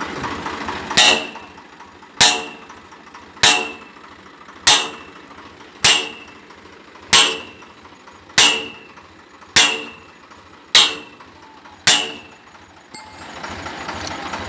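A steady series of about ten sharp metallic clangs, one every little over a second, each ringing briefly: metal striking metal on a tractor-mounted borewell drilling rig. The rig's tractor engine runs faintly underneath and grows louder near the end.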